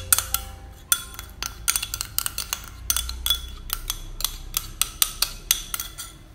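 Metal spoon tapping and scraping against a small glass bowl as blended shallot and garlic paste is knocked out of it: rapid, irregular sharp clinks, several a second, thinning out near the end.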